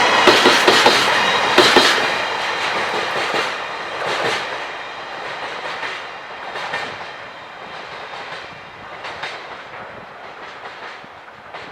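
Freight train wheels clattering over rail joints as the train passes, then fading steadily away as it recedes.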